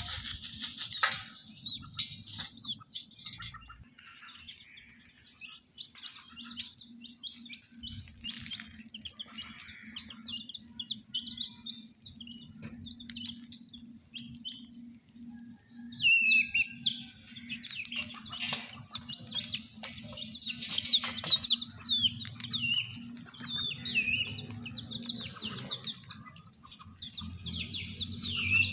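Young chicks peeping in short, high chirps, some falling in pitch, growing busier from about halfway through as they peck at food.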